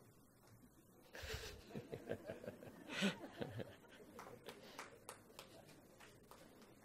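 A low thump about a second in, then a soft, brief chuckling laugh in short repeated pulses, loudest around the middle. Faint scattered clicks and rustles follow.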